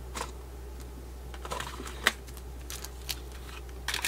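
Light, scattered clicks and taps of hands rummaging for metal head pins among small jewelry-supply boxes, with one sharper click about two seconds in and a quick cluster of clicks near the end.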